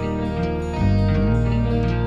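Instrumental background music with plucked strings over a bass line; the bass moves to a new note about a second in.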